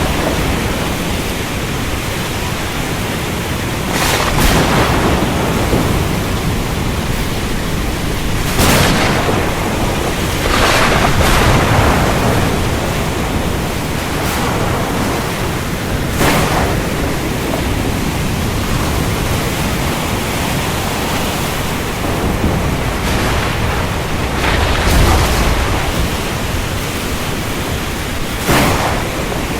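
Steady heavy rain with thunder: four sharp cracks spread through the stretch, and low rumbling that swells a couple of times.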